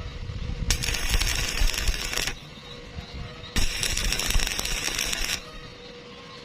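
Electric arc welding on thin square iron tube: the arc crackles and sizzles in bursts of about a second and a half, stopping and restarting with short pauses in between, as short stitch welds are laid to keep from burning through the thin metal.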